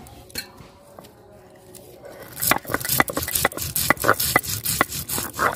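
Mustard seeds being crushed on a sil-nora, a Bengali grinding stone: the stone roller is rocked and rolled across the flat stone slab. It starts quietly, then from about two seconds in gives a quick, uneven run of sharp crackling scrapes, several a second.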